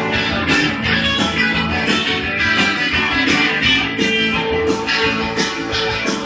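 Rock music with guitar and a steady beat, a vinyl record playing on a Pioneer PL-510 direct-drive turntable.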